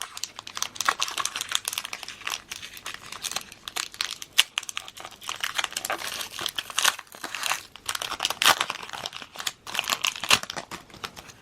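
A foil Pokémon TCG booster pack (Sun & Moon Burning Shadows) being opened by hand, its foil wrapper crinkling and rustling in dense, irregular crackles.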